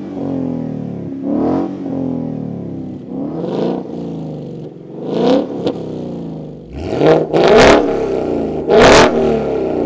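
A 2015–2017 Mustang GT's 5.0 L V8 revved in short throttle blips through three cat-back exhausts in turn: a Magnaflow Street, then an MBRP Street with H-pipe, then a Corsa Xtreme. The revs rise and fall in a series of blips, and the Corsa Xtreme's blips near the end are the loudest.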